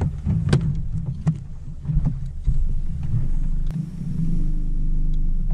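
Bass boat on the water: a low rumble with scattered knocks and clicks on the deck, then from about four seconds in a steady hum from the bow-mounted electric trolling motor running.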